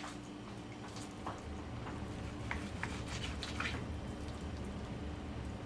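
Raw oxtail and chicken pieces being handled and seasoned by hand: a few scattered soft wet squishes and light ticks, over a steady low hum.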